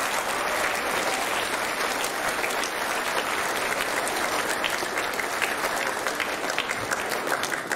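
Audience applauding with many hands clapping, thinning out to scattered claps near the end.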